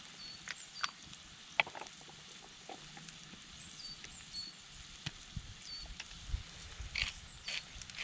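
Wood campfire crackling and popping under a frying pan of food sizzling in oil, with scattered sharp snaps, a few short high chirps that fall in pitch, and a low rumble in the second half.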